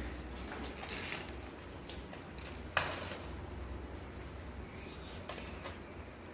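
A mongoose pushing and knocking a hen's egg about on a hard stone floor: scattered light taps and clicks, with one sharp knock about three seconds in, over a low steady hum.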